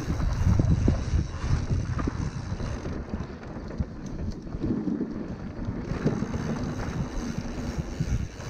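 Wind buffeting the microphone over the rumble and rattle of a mountain bike rolling along a dirt trail, with scattered knocks from the rough ground; it eases somewhat about three seconds in.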